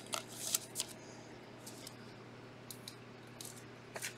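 A trading card being slid into a clear plastic sleeve and handled. There are a few short scraping rustles in the first second, then scattered light clicks and taps of card and plastic.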